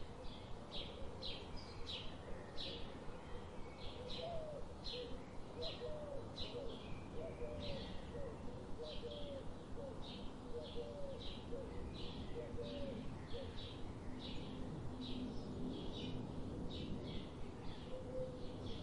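Forest birdsong: a steady, rapid series of short high chirps, about three every two seconds, with a second, lower-pitched bird repeating short hooked whistled notes for several seconds through the middle, over a steady low background hush.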